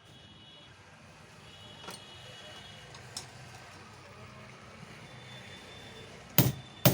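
Faint clinks of metal tools, then two sharp knocks near the end, about half a second apart: hammer blows on the bearing housing of a 4SB marble cutter while its bearing is being changed.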